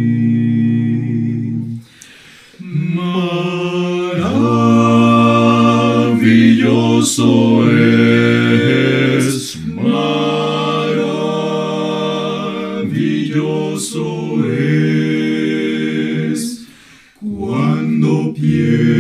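Male vocal quartet of two tenors, a baritone and a bass singing a hymn a cappella in close four-part harmony. Held chords are broken by short pauses between phrases, about two seconds in and again near the end.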